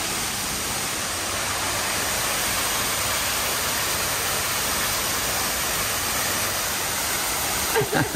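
Steady rushing and splashing of water from a man-made rock waterfall pouring into a pool, with a brief voice near the end.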